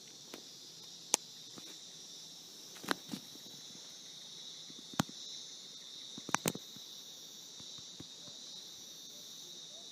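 Steady high-pitched chorus of insects in a forest, with a few sharp clicks or snaps scattered through it.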